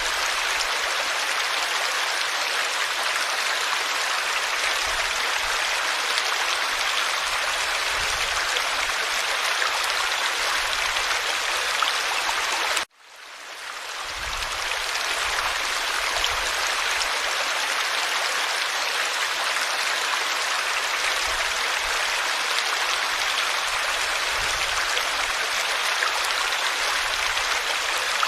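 Forest stream flowing, a steady rushing babble of water. It cuts out abruptly about thirteen seconds in and fades back in over a second or so.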